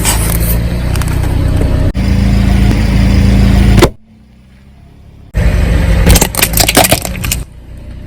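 A car's engine running with a steady low hum, then, after a brief quiet gap, loud crackling and crunching as objects are crushed under its tyres.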